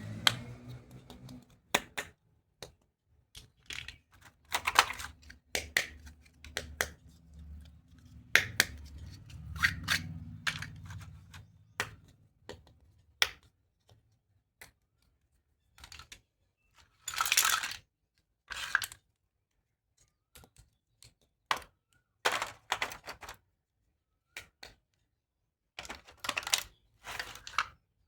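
Hard plastic pieces of a kids' toy doctor kit being handled during unboxing: irregular clicks and clacks, with a few longer rustling bursts.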